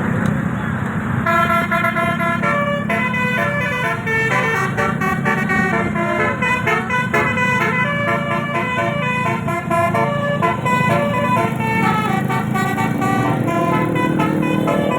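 Bus telolet horn, a bank of 18 roof-mounted air-horn trumpets, playing a melody of several tones at once that step up and down in pitch. It starts about a second in, over a steady low rumble of vehicle noise.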